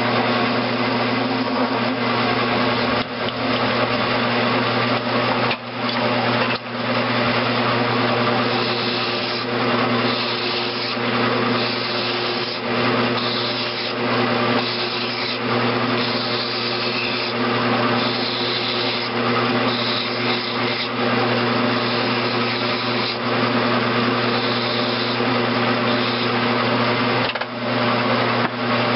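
Grizzly G9972Z bench metal lathe running, its motor and gear drive humming steadily while a tool bit cuts a freehand radius on a valve head, giving a continuous scraping hiss over the hum. The cutting noise dips briefly a few times.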